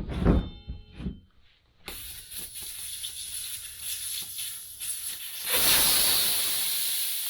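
Air hissing out of a motorcycle tire as it is deflated to break the bead. The hiss jumps louder about five and a half seconds in, then slowly fades. A few clicks and knocks come first.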